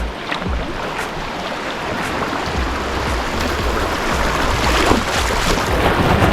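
Rushing water of small river rapids around a kayak, with scattered splashes, getting louder toward the end.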